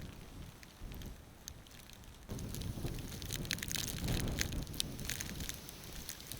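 Storm wind gusting against the microphone, a low rumble that grows stronger about two seconds in, with many scattered sharp ticks and crackles over it.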